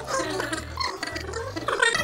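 Sped-up, garbled chatter of two men's voices, played fast-forward, with a low repeating hum underneath.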